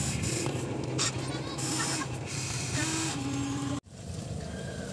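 Electric gear motors of a Huina RC excavator whining as the arm and bucket move, their pitch stepping up and down, with gravel clattering. The sound drops out briefly near the end, after which there is quieter gravel crunching.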